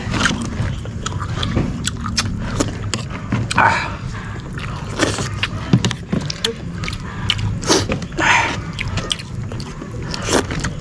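Irregular clicks, knocks and short scrapes of spoons and plates, as food is served and eaten, with a few brief rustles among them.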